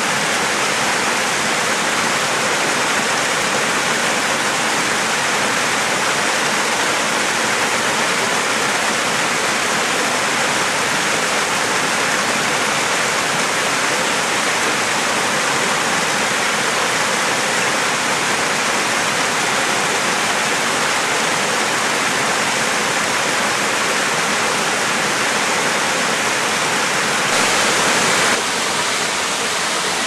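Steady rush of falling water from a mountain stream and waterfall in a rocky gorge, with a short louder stretch near the end.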